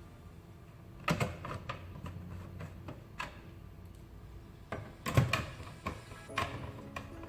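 Background music with a few sharp clicks and knocks from console parts being handled during reassembly. The loudest knock comes about five seconds in.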